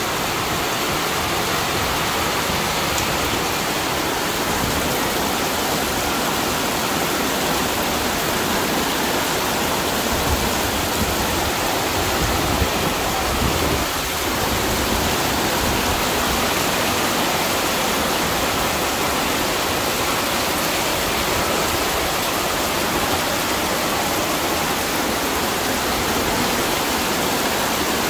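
Fast-flowing muddy floodwater rushing down a street: a steady, even rush of water.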